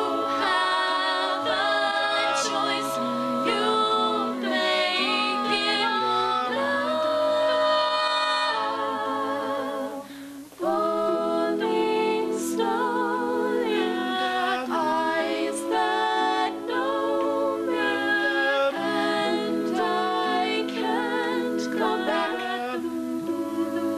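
A mixed male and female high school a cappella group singing in close harmony, holding chords with vibrato. The singing drops out briefly about ten seconds in, then carries on.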